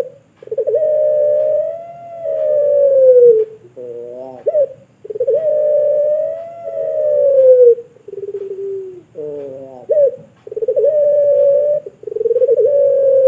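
Puter pelung, a Barbary dove bred for its long voice, cooing over and over: drawn-out coos of two to three seconds each, alternating with short notes that rise and fall.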